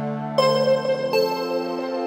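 Background music: soft synthesizer and keyboard chords, with new notes coming in about half a second and a second in.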